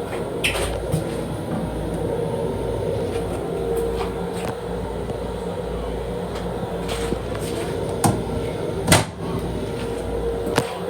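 Interior noise of a Long Island Rail Road M7 electric railcar: a steady rumble with a low hum, broken by about eight sharp clicks and knocks, the loudest about nine seconds in.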